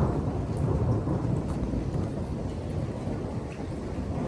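Low rumble of thunder dying away, with rain falling; the rumble starts to build again near the end.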